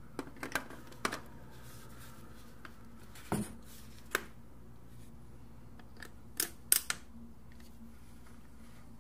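Plastic quick-connect fittings clicking and snapping as an extension wand and then an inlet hose connector are pushed onto a cordless pressure-washer gun. There are a few sharp clicks about a second in, a single knock in the middle, and a quick cluster of clicks a little later.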